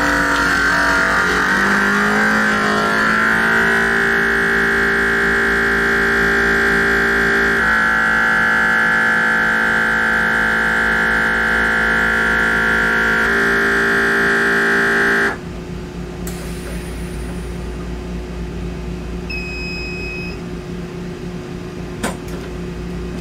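Countertop vacuum sealer's pump running as it draws the air out of a bag, its pitch shifting as the vacuum builds, then cutting off suddenly about 15 seconds in as the bag is sealed. A short high beep follows, then a click near the end as the lid is opened.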